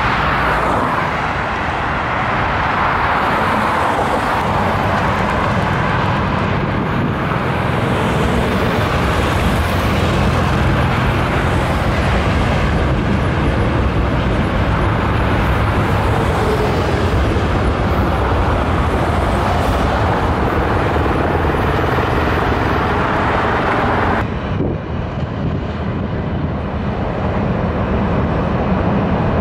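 Steady road traffic mixed with a Seoul Subway Line 4 train running over a steel arch bridge, with a low steady hum under a loud even hiss. About 24 seconds in the sound changes abruptly and loses much of its high hiss.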